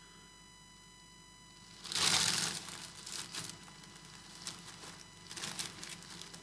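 Plastic bag crinkling as it is handled: a loud rustle about two seconds in, followed by several shorter ones.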